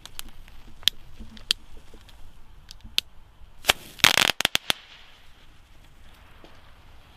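Small crackling-ball fireworks (Nico Firebolts) going off on the ground: a few scattered sharp pops, then a dense burst of crackling about four seconds in that stops within a second.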